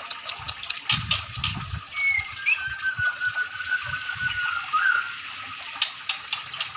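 Murai songbird (Copsychus) singing, with drawn-out whistled notes, among them one long, slightly falling whistle from about two to five seconds in. Sharp clicking notes come in bursts around a second in and again near the end, over a steady rushing hiss like running water.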